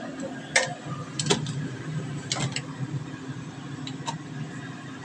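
Kitchen handling noises: a few sharp clicks and knocks of dishes and a plastic bottle being handled, over a steady low hum.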